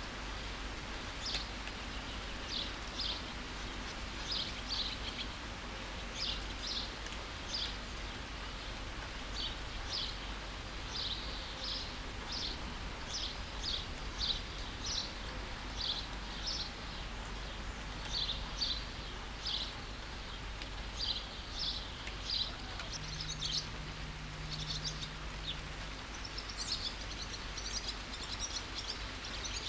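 Steady rain hiss with a bird repeating short, high chirps about once or twice a second, breaking into quicker twittering near the end.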